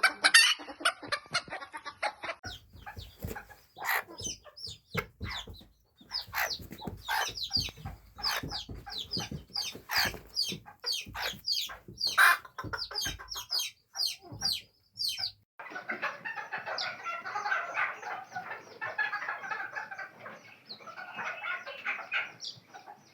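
Chickens clucking in many short, sharp calls. About two-thirds of the way in, this changes abruptly to a denser, continuous clucking chatter from a flock.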